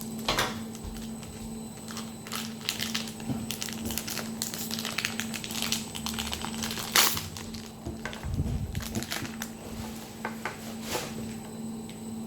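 Plastic toy packaging crinkling and rustling in irregular bursts as blind packs are torn open and handled, with a sharp crackle about seven seconds in and a steady low hum underneath.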